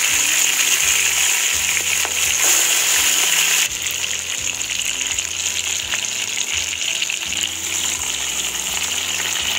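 Marinated giant freshwater prawns frying in hot mustard oil in a kadai, a dense sizzle and spatter of oil. The sizzle is loudest at first and drops abruptly to a steadier level about three and a half seconds in.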